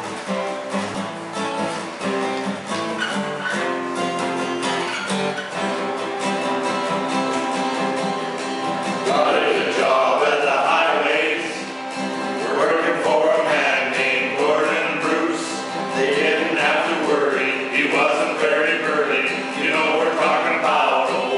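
Two acoustic guitars strumming chords, joined about nine seconds in by a group of men singing together.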